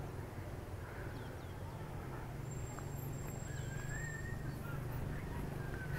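Faint outdoor background: a steady low hum with a faint wavering high call about halfway through.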